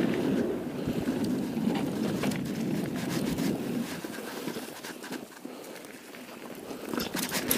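Mountain bike tyres rolling fast over a dry dirt and leaf-covered trail, with rattling clicks from the bike and wind on the microphone. The noise drops for a couple of seconds past the middle, then rises again with a burst of rattles near the end.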